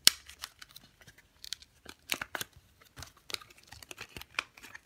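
Plastic blister pack and cardboard backing of an SD card retail package crackling, clicking and tearing as hands work at it, in irregular sharp snaps.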